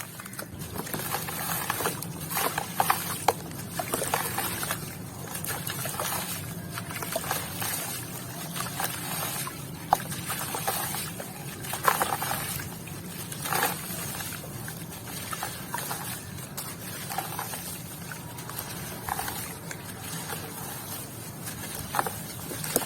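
Crunchy crackling of grainy white cement being crumbled, with wet, watery bits: an irregular stream of small crackles, a few sharper cracks standing out.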